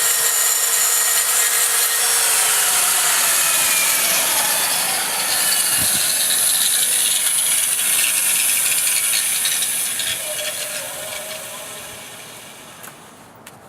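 Circular saw with a cement blade cutting through a thin cast concrete panel, a loud, steady high-pitched grinding whine; near the end the saw winds down and fades out.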